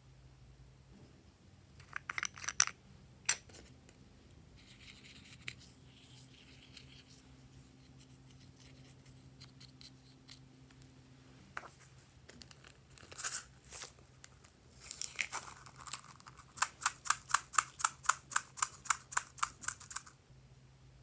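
Pink plastic spatula scraping and crumbling pressed eyeshadow out of a small compact pan in short scratchy strokes, ending with a quick run of about six scrapes a second.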